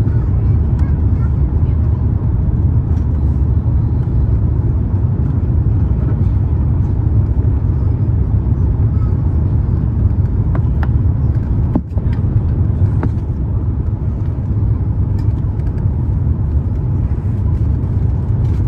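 Steady low cabin noise inside an Airbus A350-900 on approach: engine and airflow noise from its Rolls-Royce Trent XWB engines, heard from a window seat.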